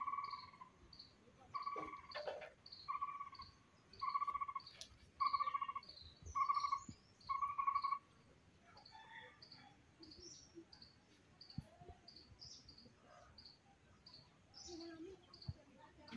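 Wild animal calls: one caller gives a run of seven flat, buzzy notes about a second apart, stopping about eight seconds in. A short high chirp repeats about twice a second throughout, and faint scattered chirps follow.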